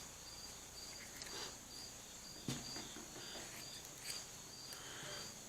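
Crickets chirping in an even rhythm, about two or three chirps a second, over a steady high insect hiss. Three faint snips are heard, the sharpest about halfway through: the freshly sharpened kitchen shears cutting cloth.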